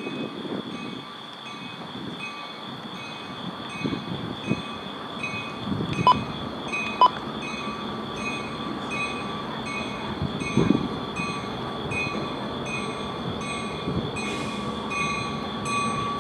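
Level-crossing warning bell ringing steadily, about twice a second, as a commuter train approaches the station; a faint tone from the approaching train grows louder near the end.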